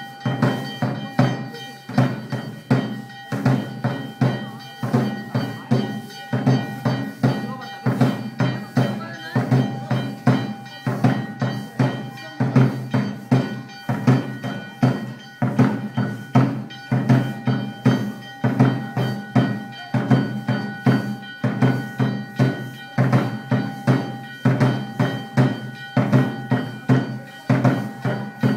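Moluccan tifa drums played in a fast, steady rhythm of strokes, with ringing metallic tones held over the beat.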